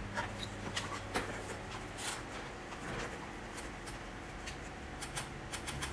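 Paper and plastic packaging and a cardboard box being handled, a run of small crackles, rustles and clicks, over a faint steady low hum.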